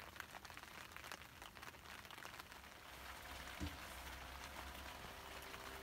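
Light rain falling: a faint patter of many small drops. About three seconds in, a faint steady low hum comes in.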